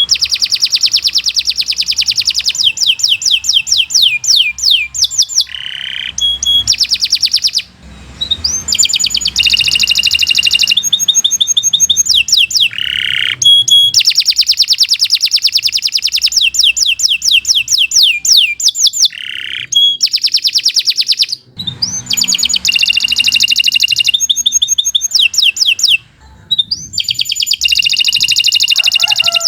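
Domestic canary singing a long, fast song of rapid trills and quickly repeated falling notes, in long phrases broken by a few short pauses.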